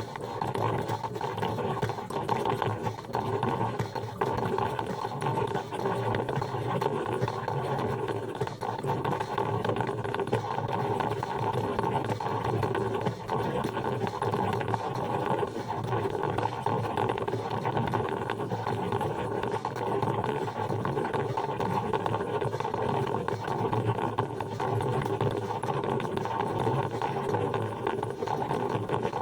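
Coffee machine running with a steady, rough mechanical whirr and rattle that holds at an even level throughout.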